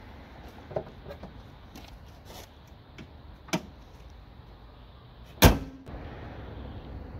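Honda hatchback's hood being closed: lighter knocks and clicks as the prop rod is put away, then one loud bang about five and a half seconds in as the hood slams shut, with a short ring after it.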